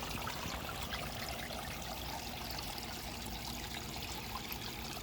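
Water trickling steadily into a koi pond.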